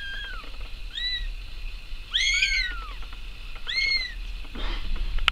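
Young kittens meowing: four short, high-pitched mews, each rising then falling in pitch, the loudest about two seconds in. A short rustle near the end.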